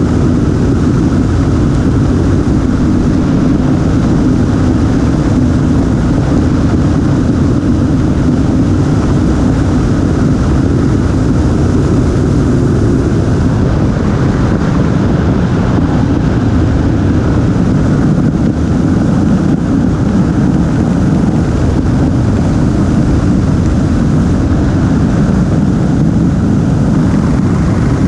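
Motorcycle cruising at steady speed: wind rushing over the camera microphone mixed with engine and tyre noise, without letup.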